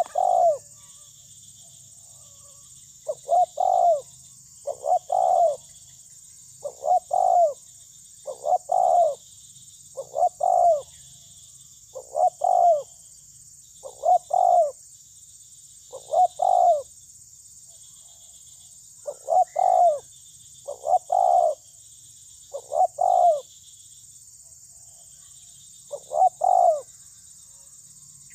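Spotted dove (terkukur) cooing a short phrase of two or three notes, the last the loudest, over and over about every one and a half to two seconds, with a couple of longer pauses; this is the 'lambung kuk' song that keepers play as a lure to set other doves calling. A faint steady high hiss lies underneath.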